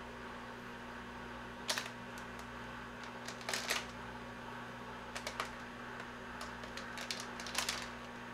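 Short clusters of dry crackling and snapping as a bundle of naengmyeon noodles is pulled apart by hand, four bursts over a few seconds, over a steady low hum.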